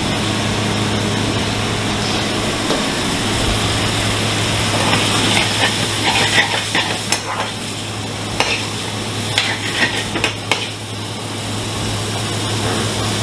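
Metal spatula stirring and scraping curry in a steel pan on a gas range, with sharp clinks against the pan between about five and ten seconds in. Under it run the sizzle of frying and a steady low hum.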